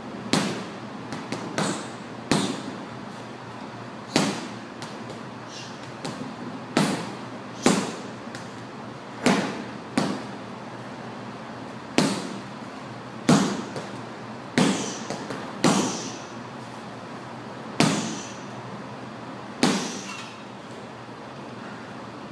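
Boxing gloves punching a hanging heavy bag: sharp thuds one at a time and in quick pairs, about one every second or two, with a pause near the end.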